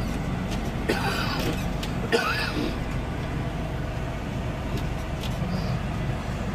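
John Deere 6520 tractor's 6.8-litre six-cylinder turbo diesel running steadily, heard from inside the cab. Two brief vocal sounds, like throat clearing, cut in at about one and two seconds.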